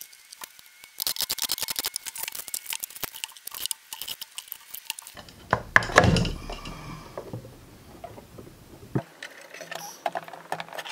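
Handling an electric-motorcycle battery module and its case on a wooden workbench: a run of rattling and clinking, then a heavy knock about six seconds in as the case is knocked on to free the module, followed by lighter clicks.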